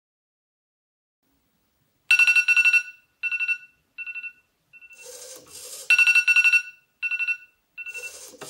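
Smartphone alarm going off about two seconds in: groups of rapid, high-pitched beeps, loud, then softer, then loud again. Short whirs from the small hobby servo swinging its arm to tap the phone's touchscreen come about five seconds in and near the end.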